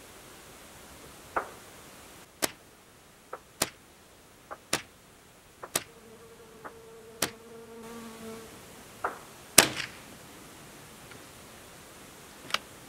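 .22 rifle shots fired from long range, with the bullets landing, heard as about a dozen scattered sharp snaps, the loudest about three-quarters through. A fly buzzes for about two seconds midway.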